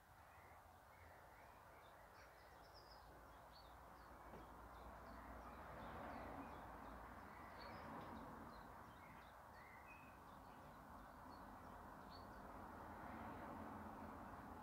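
Faint outdoor background noise, a steady low hiss, with many short bird chirps scattered throughout.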